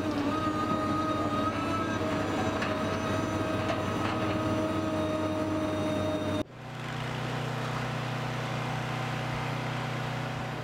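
John Deere tracked excavator running as it works a debris pile with its grapple: a steady engine drone with a held whine. About six and a half seconds in the sound changes abruptly to a lower, steady machine hum.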